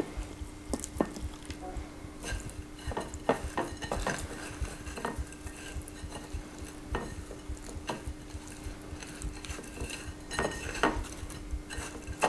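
Hands pressing and patting breadcrumbs onto a raw chicken breast in a glass pie plate: soft crumb rustling with scattered light taps and clinks against the glass, over a faint steady hum.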